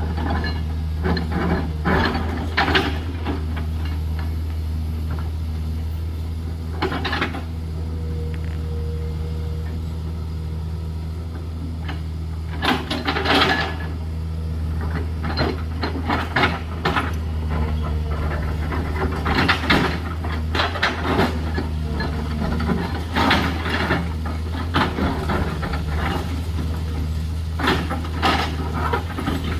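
JCB 210LC excavator's diesel engine running steadily under load, with repeated short bursts of clattering as stones and gravel rattle in and against the bucket during slope cutting.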